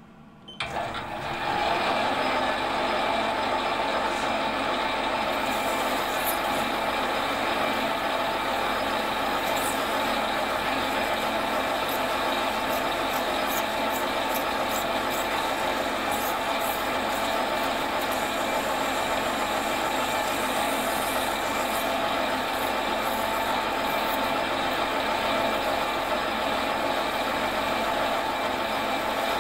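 Metal lathe starting about a second in, running up to speed and then turning steadily, while 400-grit wet-and-dry paper backed by a flat file is held against the spinning cast iron piston-ring blank to take about a thousandth of an inch off its diameter.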